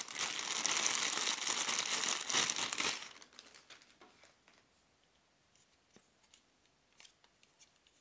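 Thin clear plastic bag crinkling loudly as a power adapter is worked out of it, stopping suddenly about three seconds in. After that there are only a few faint clicks from handling the plastic plug and its cable.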